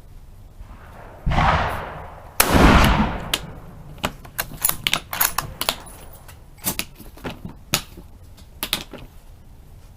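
Two rifle shots about a second apart, the second louder and ringing out for about a second, then a string of sharp clicks and knocks.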